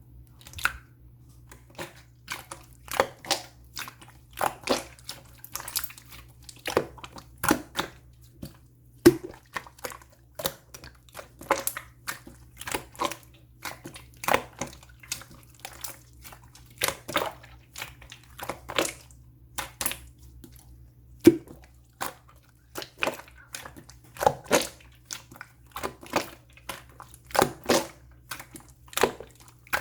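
Clear slime being squeezed and worked by hand, making irregular wet clicks and pops, about one or two a second.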